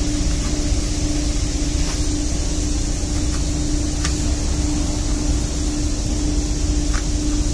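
Steady drone of running machinery: a constant hum over a low rumble, with a couple of faint clicks.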